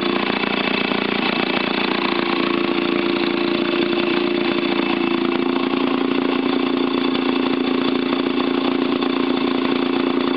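Vintage Maytag two-cylinder two-stroke engine running steadily at an even speed, firing without gaps, tuned to its sweet spot.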